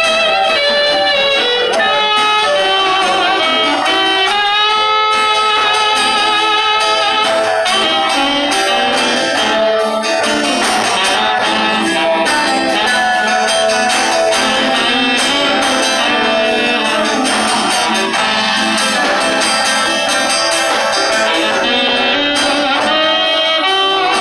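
Live rock band playing an instrumental passage, a saxophone carrying a wavering lead line over electric and acoustic guitars and drums.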